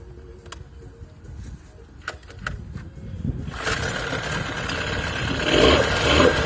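Johnson 9.9 hp outboard motor running unevenly at low speed with a few sharp clicks, then picking up and running louder from a little past halfway. The engine sneezes (misfires), a fault the owner wants fixed.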